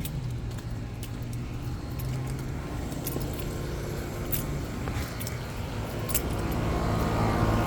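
Keys jangling, with a few sharp clicks, over a steady low hum.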